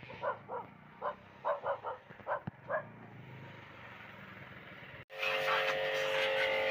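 A dog barking about eight times in quick bursts over a low background hum. About five seconds in, it cuts abruptly to a louder steady machine hum with hiss.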